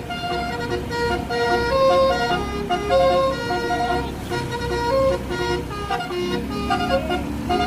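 Telolet musical horn of the Basuri type playing a quick tune of short, separate horn notes in changing pitches, over a low vehicle engine rumble.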